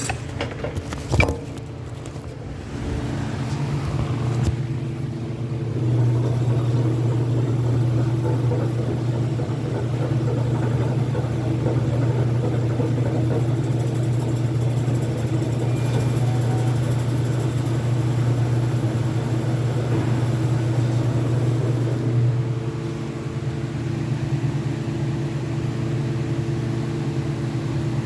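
Welding machine running with a steady low hum, which grows louder about six seconds in and drops back about twenty-two seconds in. A single sharp knock comes about a second in.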